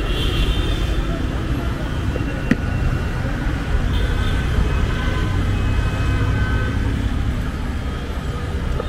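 Steady low rumble of city street traffic, with one sharp click about two and a half seconds in.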